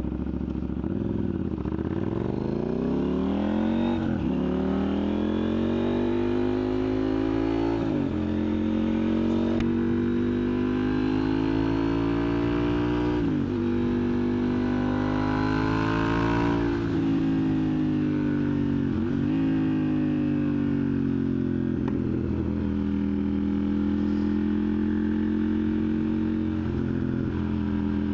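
KTM 890 Duke R parallel-twin engine through a catless aftermarket exhaust, pulling hard through the gears. The engine note climbs in pitch and drops back sharply at each gear change, several times over.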